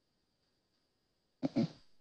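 Near silence with a faint steady high-pitched tone, broken about one and a half seconds in by a brief clipped vocal sound from a man, two quick voiced pulses.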